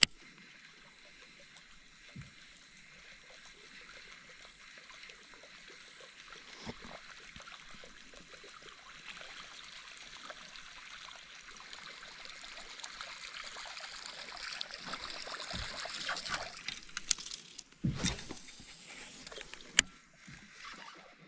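Water gurgling and splashing, growing louder over several seconds and then breaking off, followed near the end by a couple of sharp knocks.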